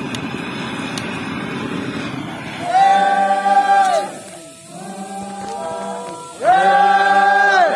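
A gas torch burns steadily as it singes a pig's hide. About two and a half seconds in, a group of men breaks into a unison chant: two long held notes, each ending in a falling glide, with a quieter stretch between.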